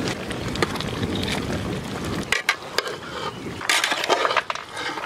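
Wind rumbling on the microphone for about two and a half seconds, cutting off abruptly. After that come scattered sharp clicks and two short rustling bursts from work at the curry pot.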